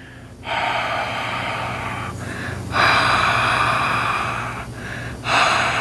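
A man exhaling long, open-mouthed warm breaths at close range, the kind of breath used to fog a lens. Three breaths of about two seconds each with short pauses between, the middle one loudest.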